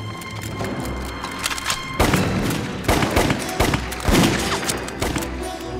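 Dramatic background music, then from about two seconds in, a firefight: a rapid string of gunshots over the music.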